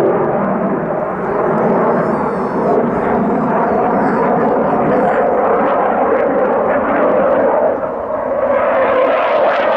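A MiG-35 fighter jet's twin turbofan engines heard from the ground as it manoeuvres overhead: a loud, continuous jet roar that dips briefly about a second in and again near eight seconds, then turns harsher with more hiss near the end.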